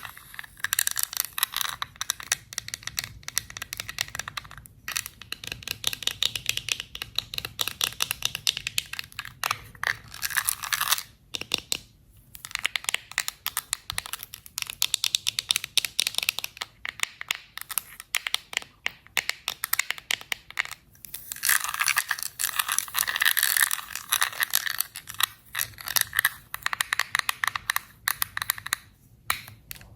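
Close-miked ASMR trigger sounds: rapid crackly tapping, scratching and crinkling, in clusters with short pauses.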